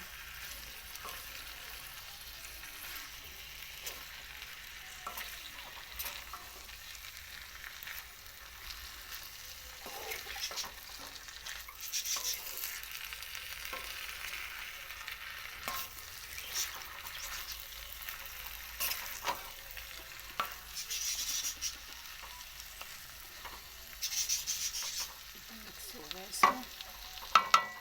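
Bitter gourd, potatoes and chicken sizzling in a kadhai while being stirred and mixed, with scrapes and knocks of the stirring spoon against the pan and sharper clatter near the end.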